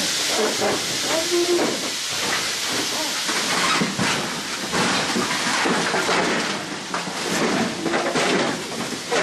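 Steady hiss with the rustle and knock of workers' protective suits and gear as they crouch and move in a cramped space, and faint muffled voices now and then.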